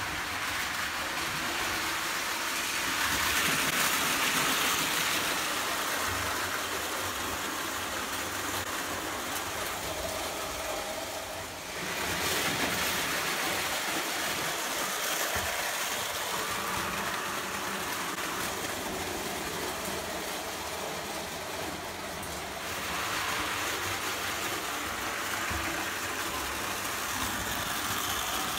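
Lionel O gauge toy trains running on three-rail tinplate track: a steady running noise of wheels and motors. It shifts in loudness about 12 and 23 seconds in.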